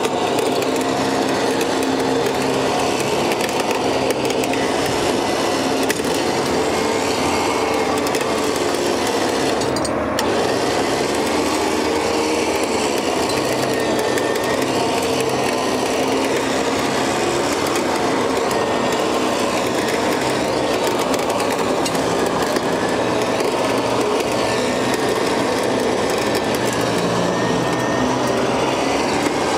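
Electric trailer winch pulling a pickup up the ramp: a steady motor whine with cable and gear noise, its pitch wavering under the load.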